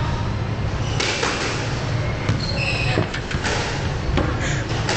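Squash rally: a ball smacked by racquets and against the court walls, sharp strikes about a second apart, with short high squeaks from shoes on the wooden floor over a steady low rumble.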